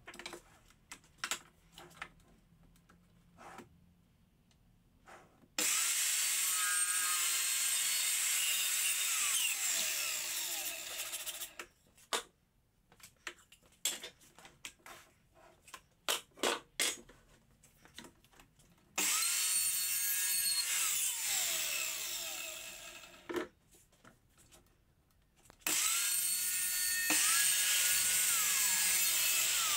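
Evolution R210 SMS+ sliding mitre saw run three times, each time for a few seconds, with a high motor whine that winds up and then runs down; the last run cuts through PVC pipe. Between the runs there are sharp knocks and clatter from pieces being handled on the saw table.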